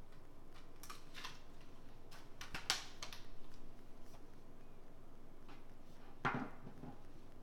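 Steelbook disc case being handled over a wooden table: scattered light clicks and taps between about one and three seconds in, and a single knock about six seconds in.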